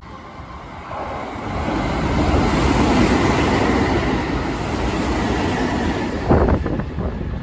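Sanyo Electric Railway electric train running past along the platform track, its rumble swelling over the first couple of seconds and holding, with a few sharp clacks from the wheels about six seconds in before the sound falls away.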